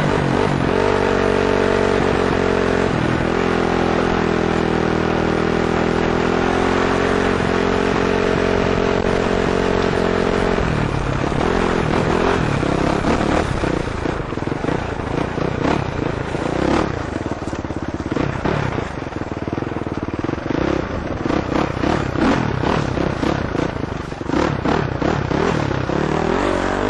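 KTM 450 four-stroke dirt bike engine running at steady revs for about ten seconds, then revving up and down. Through the second half there are many short knocks and clatter from the bike going over rough ground.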